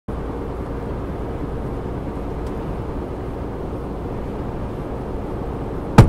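Lorry driving at a steady speed: an even, low drone of engine and road noise.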